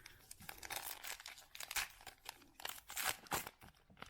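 A trading-card pack's wrapper crinkling and tearing as it is ripped open and handled, a run of irregular crackles.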